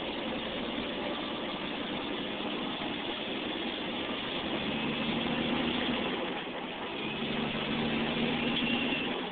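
Road noise inside a moving car's cabin on a gravel road: a steady hiss and rumble of tyres on gravel, with an engine hum that becomes more prominent about halfway through.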